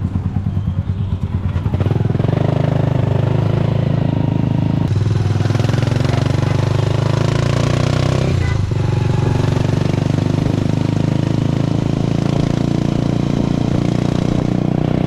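Motorcycle engine of a motorized tricycle running steadily, heard from the ride. It grows louder about two seconds in, and a rushing noise joins it a few seconds later.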